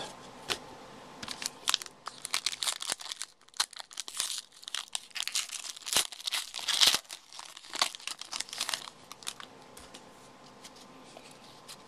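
Foil trading-card pack wrapper crinkling and tearing as it is opened by hand, loudest about six to seven seconds in, then dying away over the last few seconds.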